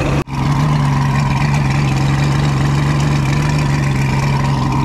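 Checkmate speedboat's engine running steadily at a constant speed, with one brief dropout just after the start.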